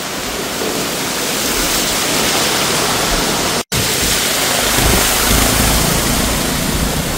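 Steady rushing hiss of heavy rain and floodwater. After a brief dropout about halfway through, a deeper rumble joins it: wind on the microphone and vehicles driving through floodwater.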